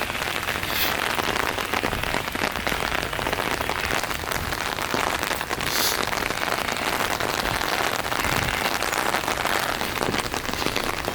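Steady, consistent rain falling: an even hiss made of many small drop impacts.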